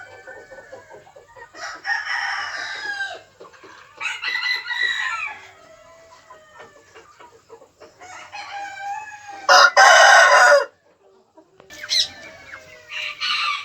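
Roosters crowing several times in turn, each crow lasting about a second or more, the loudest about ten seconds in and cut off sharply, with hens clucking between the crows.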